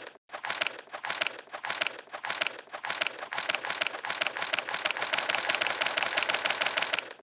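Paper calendar pages flipped off in quick succession: a rapid run of papery flicks and rustles that stops abruptly near the end.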